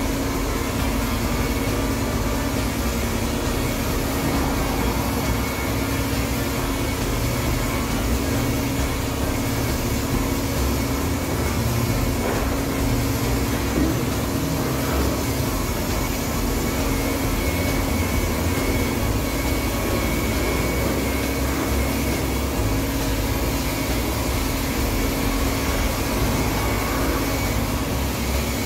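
Electric rotary car polisher running steadily as its foam pad buffs car paint: a constant motor hum.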